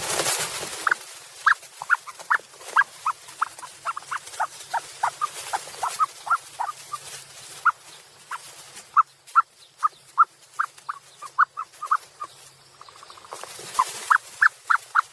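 Ostrich chicks peeping: a long run of short, high chirps, about two or three a second, over a faint low hum, with a burst of hiss at the start and another near the end.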